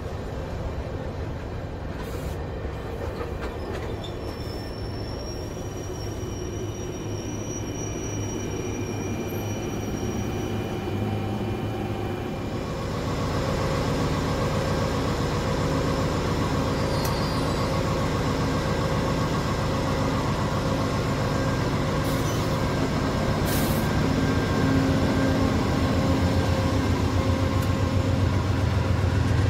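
Passenger train cars rolling past on the rails, with a thin high wheel squeal for several seconds. About halfway through, a VIA Rail P42DC diesel locomotive's engine takes over as a steady low drone while it moves slowly past, growing a little louder toward the end.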